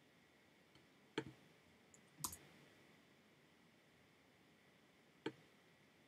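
Three sharp clicks of a computer mouse on near-silent room tone: one about a second in, a doubled click just after two seconds, and one near the end.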